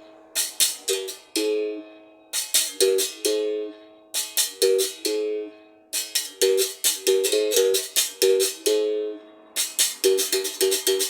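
Berimbau played in short repeating rhythmic phrases: quick clusters of strikes on its steel string, switching between two or three pitches, with brief gaps between the phrases.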